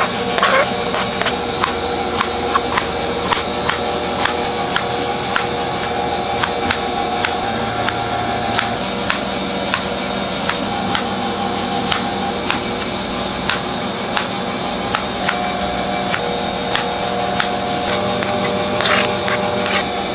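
Kitchen knife slicing strawberries on a plastic cutting board, the blade clicking against the board about twice a second, over a steady machine hum.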